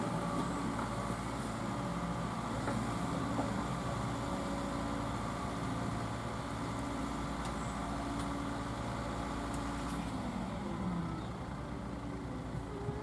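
Diesel engine of a Liebherr road-rail excavator running steadily, with a few faint clicks. About ten seconds in it eases off, dropping in level and pitch.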